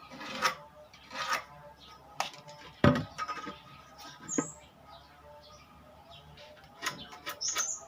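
Irregular light knocks and clatter of wooden boards being handled, the loudest knock about three seconds in, with a bird chirping a couple of times.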